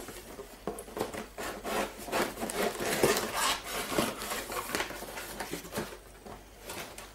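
Scissors scraping and cutting along the tape of a cardboard shipping box, with the cardboard rubbing and scratching as it is worked open in a run of short, irregular strokes.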